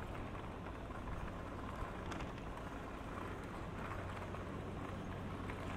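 City street ambience: a steady wash of traffic noise with a low hum underneath and a few faint clicks.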